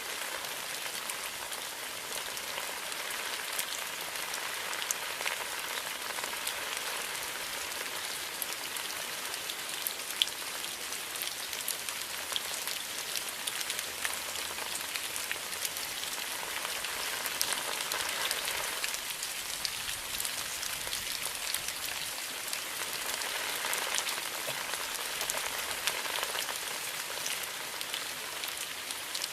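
Steady rain falling on bamboo leaves, a dense patter of individual drops with the odd sharper drop hit standing out.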